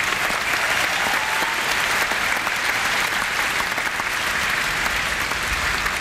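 Large stadium crowd applauding steadily, greeting a band member's introduction.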